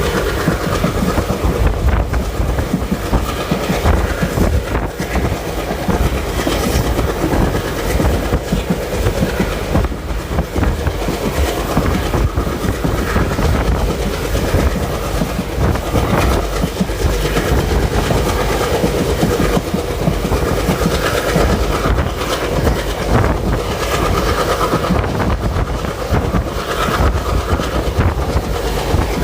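Passenger train running, heard from on board a coach: a steady loud rumble of wheels on rails with clickety-clack over the rail joints and a faint whine that comes and goes.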